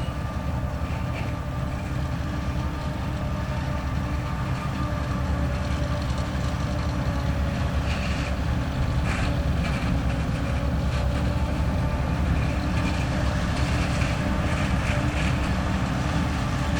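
Heavy diesel farm machinery running steadily, growing a little louder, with a few short clanks and rattles in the middle.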